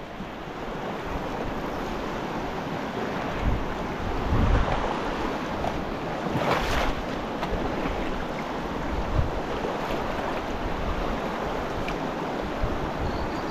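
Steady rush of a fast-flowing river, with wind gusting on the microphone and a brief louder burst about halfway through.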